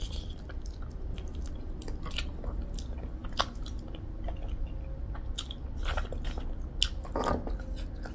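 Close-miked eating sounds: chewing and biting a hand-fed mouthful of rice and pork trotter pickle, with irregular wet smacks and sharp mouth clicks. The sharpest clicks come about three and a half and seven seconds in.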